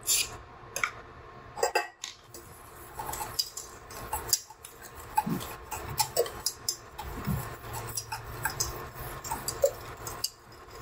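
Wire whisk clicking and scraping irregularly against the sides of a stainless steel saucepan as butter is whisked into melted chocolate.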